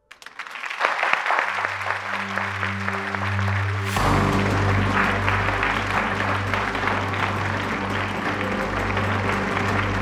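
An audience applauding, a dense patter of many hands clapping, over background music with low held notes that swells about four seconds in.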